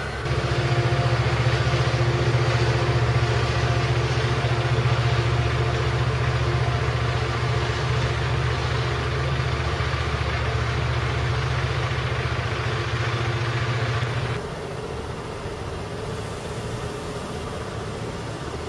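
Diesel locomotive, an Amtrak EMD F59PHI, running steadily at the platform with a deep hum. The sound drops away sharply about fourteen seconds in, leaving a fainter steady background noise.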